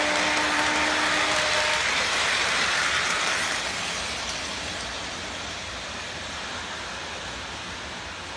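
Restored 1955 Lionel GP-7 toy diesel locomotive running on its track: its horn buzzes steadily and cuts off about two seconds in, leaving the whirring of the motor and wheels, which slowly fades.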